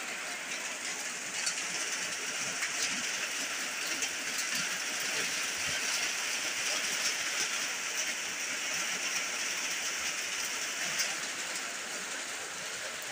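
Heavy rain pouring onto a flooded, muddy yard: a steady hiss of falling drops on standing water, with a few sharper drop taps.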